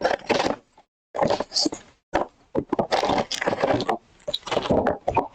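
A sealed trading-card box being opened by hand and its wrapped packs taken out: irregular rustling, tearing and knocking of cardboard and wrappers, in short bursts with brief pauses.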